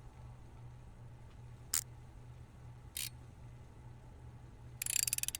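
Mechanical tool sound effects: two single sharp clicks, then near the end a quick run of rapid clicking, over a low steady hum.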